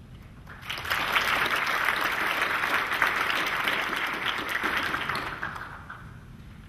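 Audience applauding: clapping starts about half a second in, holds steady for about five seconds and dies away near the end.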